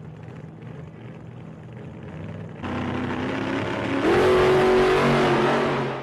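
A car engine running and accelerating: it fades in, gets louder partway through, then revs up about four seconds in and holds the higher pitch before fading out.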